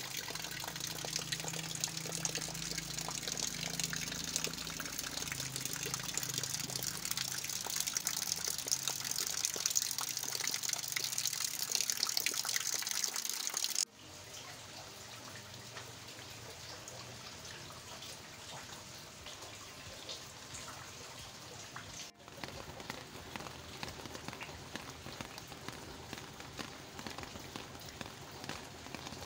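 Rain falling steadily, with water trickling and pouring off the roof eaves in the first half. After a sudden cut about halfway through it continues as a softer, even hiss of rain.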